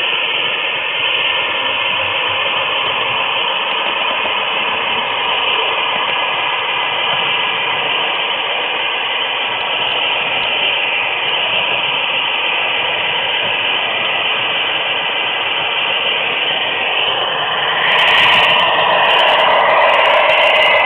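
Steady rolling rumble of an HO-scale model train's wheels running on the rails, heard from a camera riding on a flat car in the train. The sound gets a little louder and fuller near the end.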